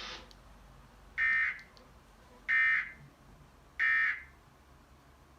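Emergency Alert System end-of-message data burst: three short bursts of shrill digital warbling tones, about a second apart, signalling that the alert message is over.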